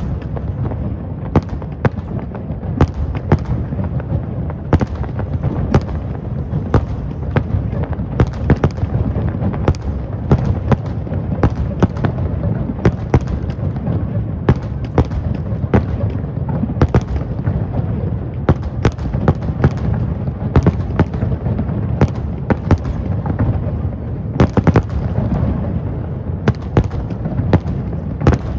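Fireworks display: aerial shells bursting in quick succession, sharp bangs several times a second over a continuous low rumble of overlapping explosions.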